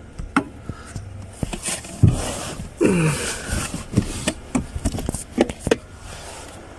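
Hard plastic dashboard trim being handled and pushed into place under the dash: an irregular run of clicks, knocks and scrapes, with a short falling squeak about three seconds in.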